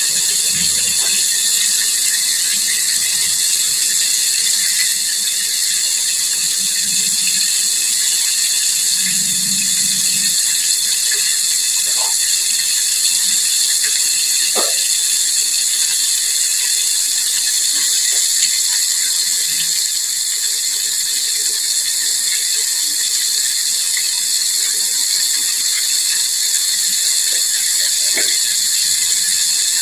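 Hot oil sizzling and crackling steadily around a whole breaded chicken deep-frying in a pot, with a few faint pops.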